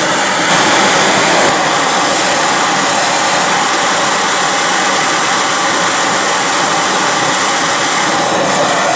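Handheld propane torch burning with a steady hiss. Its flame is heating the spine of a steel froe blade clamped in a vise, drawing a temper until the spine turns blue.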